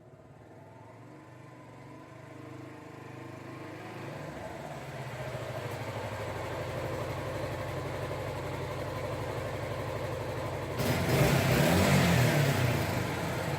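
Suzuki GZ250's single-cylinder engine running and getting steadily louder as the motorcycle approaches, then suddenly louder about eleven seconds in, where the engine revs up and back down.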